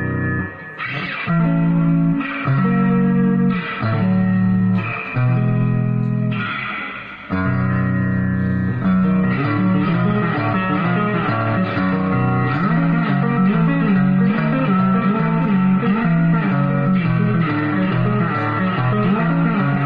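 Ibanez RG electric guitar played through an amplifier as a tone check: a few held chords, each about a second long with short gaps, then from about seven seconds in a continuous run of quick riffing notes.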